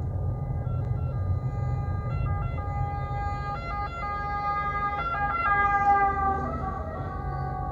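Emergency vehicle siren sounding its alternating tones, loudest about six seconds in, heard from inside a moving car over steady road rumble.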